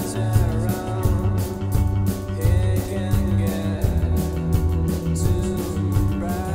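Background music with a steady beat, bass and a gliding melody line.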